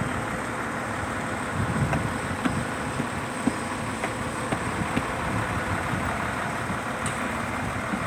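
Heavy truck-crane diesel engine running steadily, with a few faint clicks now and then.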